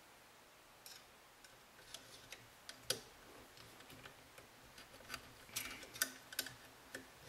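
Faint, scattered metal clicks and light scrapes as a steel AR-15 gas tube is slid by hand into the upper receiver, the ticks coming more often in the last couple of seconds.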